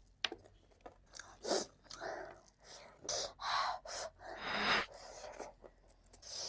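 Close-miked chewing of gilo chatpate, a moist spiced puffed-rice snack: irregular wet crunching and mouth sounds in short bursts, with a louder rasping burst about two-thirds of the way through.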